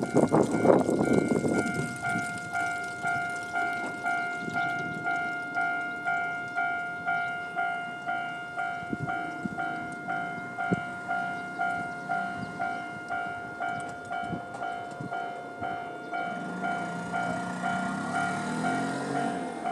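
Japanese level-crossing warning bell in the old JNR-style tone, ringing in an even, steady ding rhythm. The rumble of a WKT-500 diesel railcar going over the crossing dies away in the first two seconds, and a low engine hum rises near the end.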